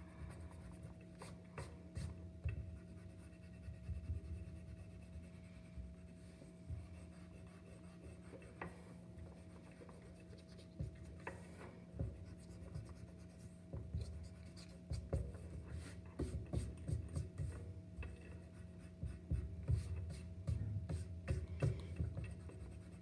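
Pink eraser rubbing back and forth over drawing paper to erase light pencil lines, in short, irregular strokes with the paper shifting and occasional small taps on the table.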